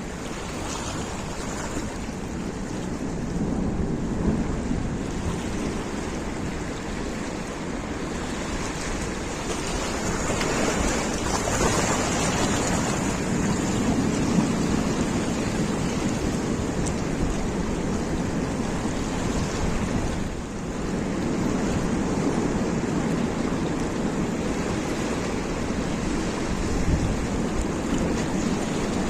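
Sea surf washing in, rising and falling, with wind buffeting the microphone.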